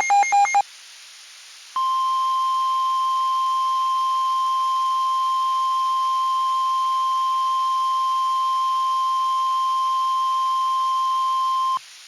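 A rapid run of electronic beeping tones stops just after the start. About a second later a single steady NOAA Weather Radio-style 1050 Hz warning alarm tone sounds for about ten seconds and cuts off sharply. It is the attention signal that comes before a weather warning message is read out.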